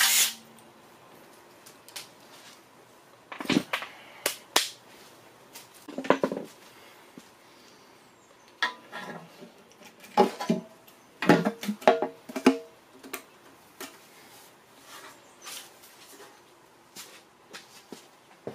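A brief burst from a cordless impact driver at the start, then scattered knocks and metal clanks as the oil pan is pried off a Honda K24A engine block with a screwdriver and lifted away. Several of the strikes ring briefly.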